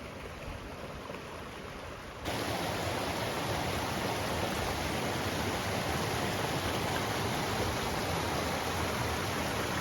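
A mountain creek running with seasonal runoff, a steady rushing of water that becomes abruptly louder about two seconds in.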